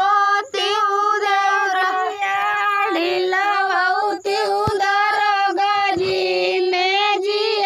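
A high female voice singing a chohkra, a women's folk wedding song, in long held, wavering notes with only brief breaks for breath.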